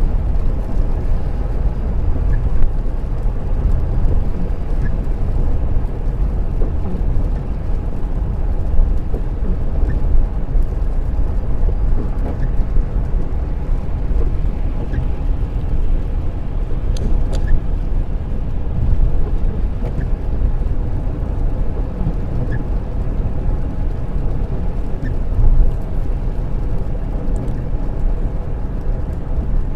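Steady road noise inside a car cruising on a wet dual carriageway: tyres on the wet surface and the engine running. A faint tick comes about every two and a half seconds.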